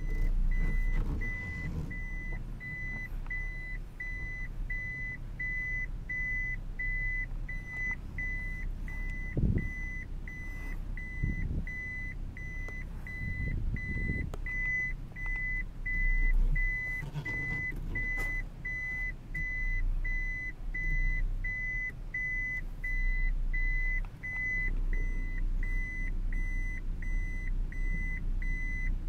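An in-cabin electronic warning beeper sounding one short high beep a little over once a second without a break, over the low running of the 1994 Toyota Aristo's 2JZ-GTE twin-turbo straight-six as the car creeps along, with a few dull bumps from the car.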